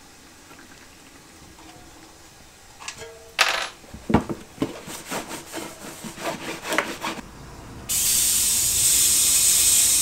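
Irregular knocks and rubbing as the fat bike wheel and tyre are handled and wiped, then from about eight seconds in a loud steady hiss of compressed air from an air-line inflator filling the tubeless fat bike tyre.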